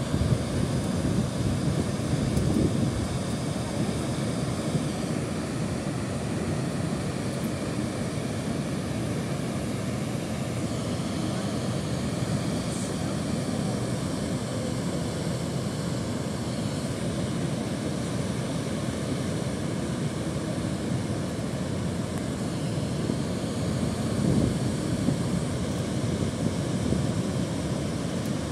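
Steady rushing of a large waterfall in heavy flow: an even, low-weighted noise with no breaks.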